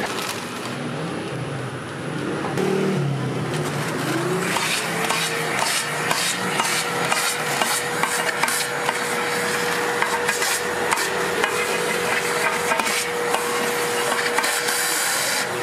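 Metal utensils clicking and scraping at a red bean cake griddle, many quick clicks. About four seconds in, a motor hum rises to a steady pitch and holds, falling away at the end.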